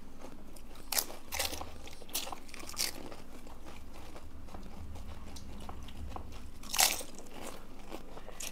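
Crisp, hollow pani puri shells crunching as they are cracked open and bitten: a few sharp crunches in the first three seconds and a louder one near the end.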